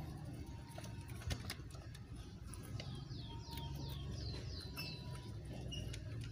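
A small bird calling in a quick run of about seven short, falling chirps about three seconds in, over soft rustling and clicking from guinea pigs feeding on grass and greens.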